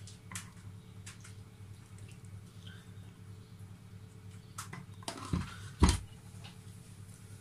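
Metal spoon scraping and tapping thick ice-cream mixture into a plastic popsicle mold, with a few faint clicks. About five seconds in there is a short clatter and two thuds as the cup and mold are set down on the counter.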